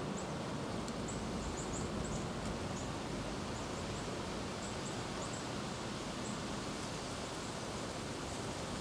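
Outdoor woodland ambience: a steady, even background hiss with faint, short high-pitched chirps scattered through the first half.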